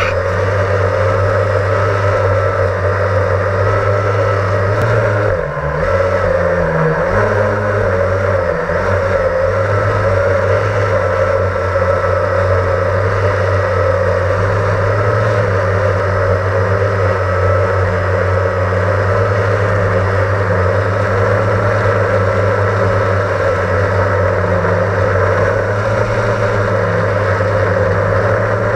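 Blade 350 QX quadcopter's electric motors and propellers running in flight, heard from on board: a steady hum and whine. Its pitch wavers with the throttle and dips and recovers several times about five to nine seconds in.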